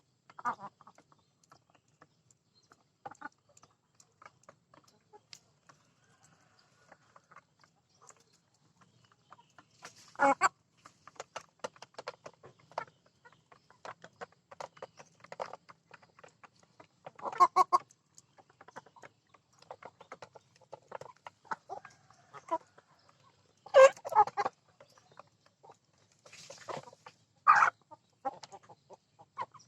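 Chickens clucking on and off, with a few louder calls spread several seconds apart and many faint short ticks in between.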